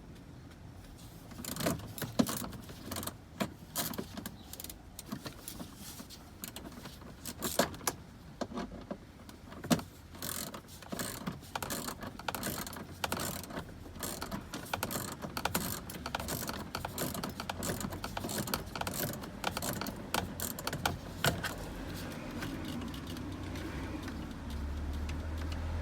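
Hand tools and a socket wrench clicking and knocking against the plastic dashboard trim of a car, a dense run of irregular clicks and knocks.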